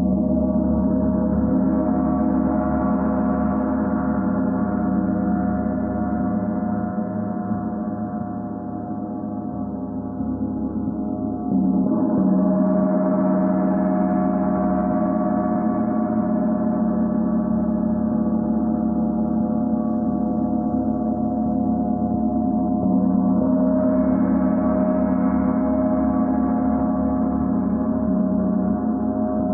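Large symphonic gong played continuously with two soft mallets, a dense, sustained wash of ringing tones. It swells three times: at the start, a little before halfway and again about three-quarters through, dipping slightly between the first two swells.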